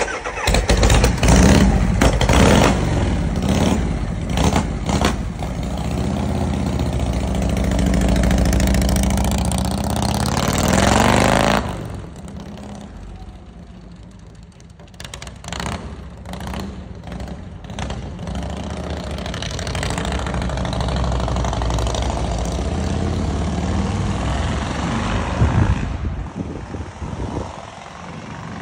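Harley-Davidson V-twin motorcycle engine, just started, being revved with a rising rev about ten seconds in, then pulling away so the sound drops off suddenly. It grows louder again as the bike rides back, then falls away near the end.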